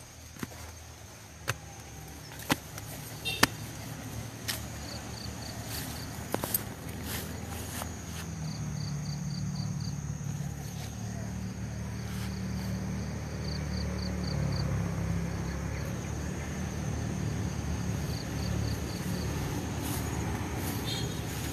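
Outdoor ambience: an insect chirping in short trills of a few rapid pulses, repeated several times, over a low engine rumble of a passing motor vehicle that grows louder about eight seconds in. A few sharp clicks of footsteps and phone handling come in the first few seconds.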